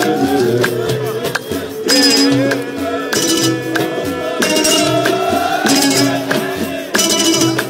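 Background music with a steady beat, bright percussion strikes recurring about every second and a quarter over a melody.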